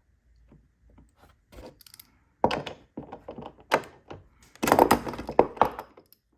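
Hand tools and steel nuts on a hanger bolt knocking and clicking as two nuts locked against each other are worked loose. The sound is a run of sharp knocks and clinks, scattered at first and thickest about five seconds in.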